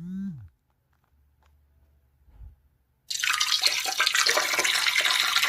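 Peeing sound effect: a steady stream of liquid splashing into toilet water, starting a little over halfway in and running for about three seconds.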